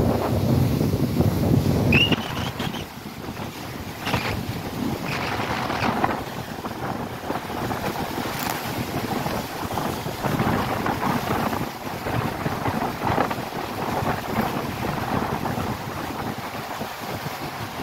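Choppy sea waves breaking and splashing against a rock seawall, with wind buffeting the microphone. The low wind rumble is heaviest for the first two seconds, and after that the surf surges every few seconds.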